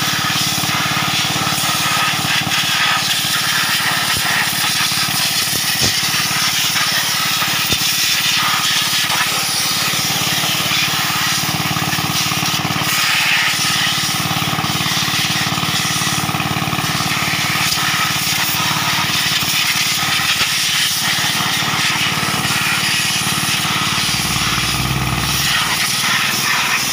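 Compressed air hissing steadily from an air-hose nozzle as it blows dust off a tractor engine, with a steady machine hum underneath.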